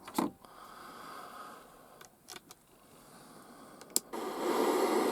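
A few light clicks over faint hiss, then about four seconds in a sharp click and the Roberts Revival R250 radio's speaker comes on with loud, steady static hiss, tuned between FM stations.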